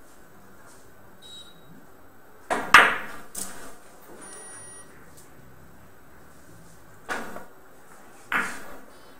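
A billiard cue strikes the cue ball about two and a half seconds in, followed at once by a sharp, loud click of balls colliding and a few fainter clicks. Two more single ball knocks come later, near the end.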